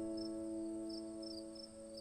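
Soft background music: a held keyboard chord slowly fading, with high cricket-like chirps repeating about three times a second.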